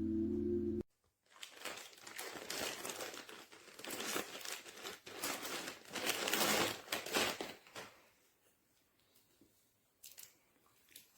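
Music stops abruptly under a second in, then dense crinkling and crumpling for about six seconds, dying away into a few faint clicks.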